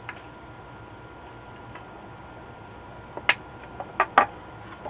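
A few sharp clicks and taps from a circuit board and its parts being handled while capacitors are removed: a small one at the start, one a little past three seconds in, and two louder ones in quick succession around four seconds in, over a faint steady hum.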